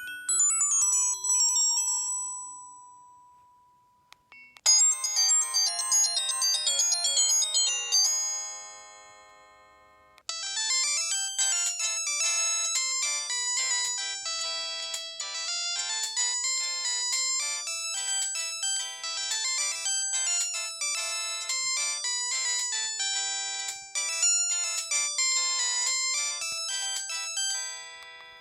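Preloaded ringtones of a Samsung SGH-C260 mobile phone played one after another: the end of one melody dying away on a held note, a short bright melody about five seconds in that rings off, then a longer, busier electronic melody from about ten seconds in.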